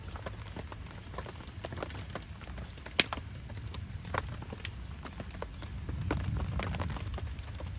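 Wood campfire crackling with irregular pops, one sharp snap about three seconds in, over a steady low rumble.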